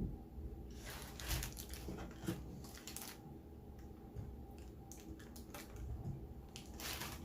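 Close-miked chewing and crunching of someone eating: a run of short, crisp crunches for about two seconds, then scattered smaller ones and another burst near the end, over a few soft low thumps.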